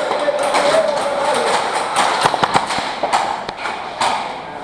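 Airsoft guns firing in an indoor game: irregular sharp clicks and knocks of shots and BB impacts, with a steady tone through the first second and a half.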